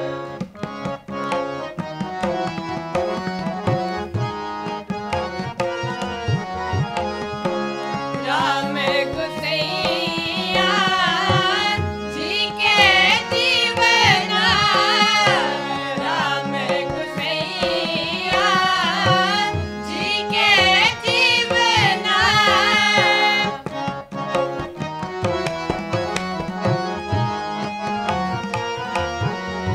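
Sikh kirtan: two harmoniums sustain the melody while a tabla keeps a steady rhythm. Voices sing ornamented, wavering phrases from about eight seconds in until about twenty-three seconds in, and then the harmoniums and tabla carry on alone.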